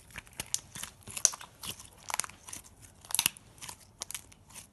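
Clear glue slime being squeezed and worked in the hands, giving an irregular run of sharp crackling pops and clicks.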